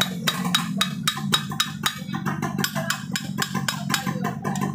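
Ratchet wrench clicking quickly, about five clicks a second, as it is turned to tighten a bolt, over background music.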